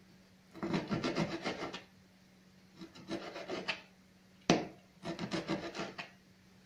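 Kitchen knife cutting pork fat into small cubes on a plastic cutting board: three runs of quick knife strokes, with one sharp knock about four and a half seconds in that is the loudest sound.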